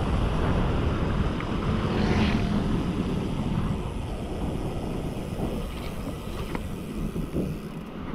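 Wind rushing over the microphone and tyre noise from a bicycle rolling along a tarmac road, a steady low rumble that eases a little about halfway through.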